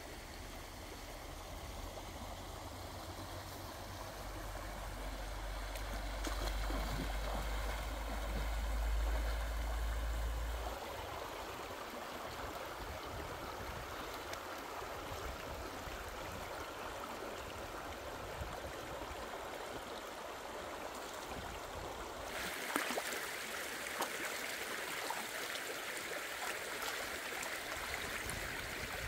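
Stream water running steadily over rocks, with a low rumble for about the first ten seconds. From about 22 seconds in, the water sounds brighter, with a few sharp splashes as a whole plucked chicken is rinsed in the current.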